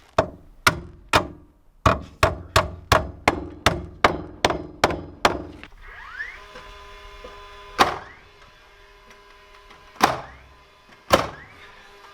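Hammer driving nails into wooden framing lumber. Three spaced blows, then a run of about ten quick even strikes, a little under three a second, then three more spaced blows.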